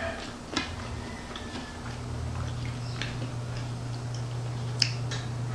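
Eating sounds from a fried-chicken meal: scattered light clicks and taps of chewing and of food handled at plates, with one sharper click near the end. A low steady hum comes in about two seconds in.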